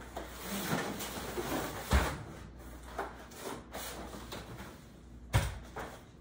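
Cardboard scraping and rustling as a long flat-pack shelf panel is slid out of an upright cardboard box. Two sharp knocks come through it, about two seconds in and again near the end, with a few lighter knocks between.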